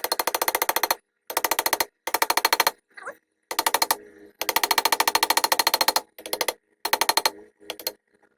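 Hammer blows driving an old knife's tang into a wooden handle held in a vise. The strikes come very fast and evenly spaced, in several runs broken by short pauses.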